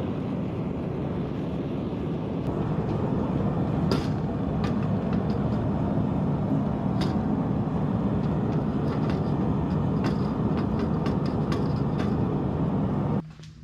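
Steady low roar of a gas forge burner heating the blade for the quench, with scattered light clicks and taps over it; the roar cuts off suddenly near the end.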